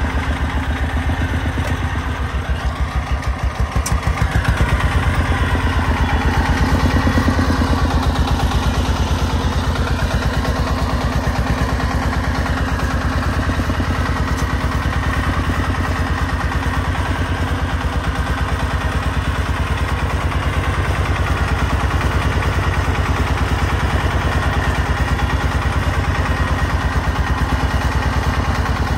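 Diesel engine of a homemade three-wheeled công nông dump truck, the '36' engine, chugging with rapid, even firing pulses as it hauls a full load of soil. It pulls harder about four seconds in, then runs steadily.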